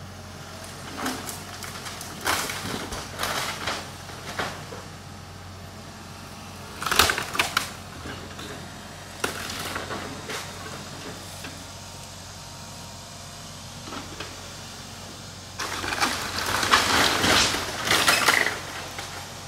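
Heavy equipment tearing down an old wood-frame house: irregular crashes of breaking timber and falling debris over a steady low hum. The crashes are loudest about seven seconds in and again for several seconds near the end.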